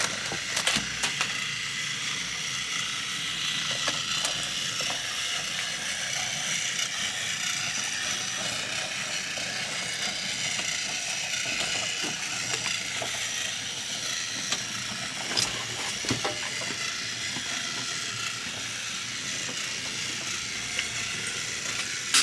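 Battery-powered toy train's small electric motor and gears whirring steadily, with a few light clicks near the start.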